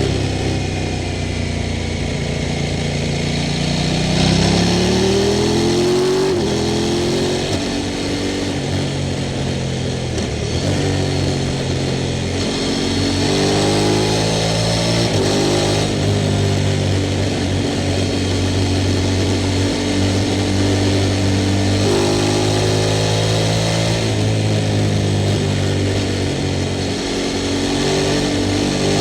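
Sport motorcycle engine pulling through the gears: its pitch climbs, then steps down at each upshift, several times, between stretches of steady running.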